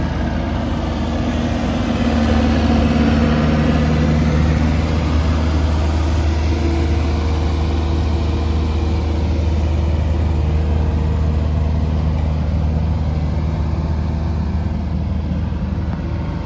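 Diesel engine of a Kubota U55-4 mini excavator running steadily at low revs.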